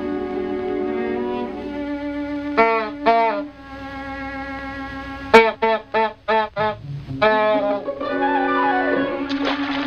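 Orchestral cartoon score led by violins and other strings, broken by short pitched cartoon cries from a crying duckling: two about a third of the way in, then a quick string of about six a little past halfway.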